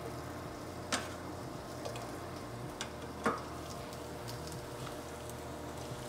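Garlic, ginger and green onion pieces sizzling gently in hot oil in a nonstick frying pan, flavoring the oil before the fish goes in. A few sharp crackles come through, the clearest about one second and about three seconds in.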